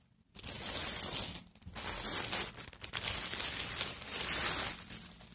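Packaging crinkling and rustling as a garment is pulled out of its parcel and unwrapped. There is a short burst of about a second, a brief pause, then about three seconds more.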